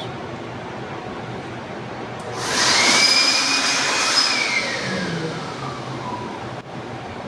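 A small electric blower motor switched on about two seconds in: a rush of air with a whine that rises quickly, holds for about two seconds, then falls away as the motor spins down.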